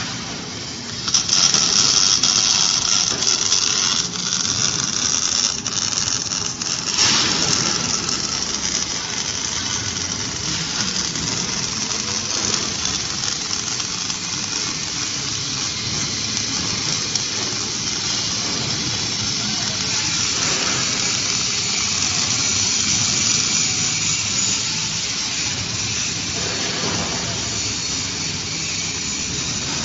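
Gantry-mounted automatic welding machine's arc welding steel: a steady high-pitched hiss, with a few short, sharp cracks in the first seven seconds and another near twenty seconds.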